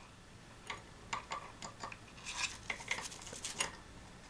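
Green-cheeked conure clambering and pecking on a wooden playstand: irregular sharp clicks and taps of beak and feet on wood and plastic toy parts, coming thickest in a rapid cluster in the middle.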